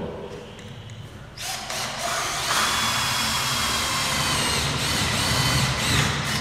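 Cordless drill boring into steel framing: it starts about a second and a half in, then runs steadily at full speed with a high whine, and its pitch dips briefly near the end.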